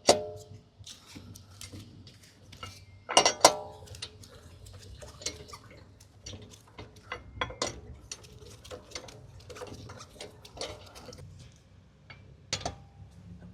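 Wheel bolts being tightened with a wrench: sharp metal clinks with a brief ring, at the start and twice about three seconds in, then a long run of small quick ticks as the bolts are turned in a star pattern.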